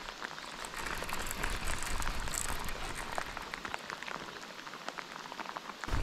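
Heavy rain falling steadily: a hiss full of many small drop ticks. A brief thump comes just before the end.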